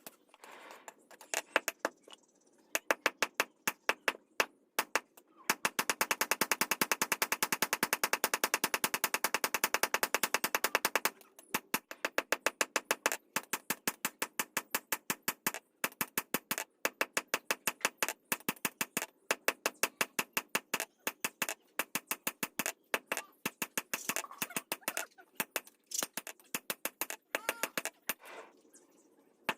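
Rapid, sharp tool strikes during khukuri handle work: a fast run of about ten taps a second for several seconds, with slower strikes a few a second before and after.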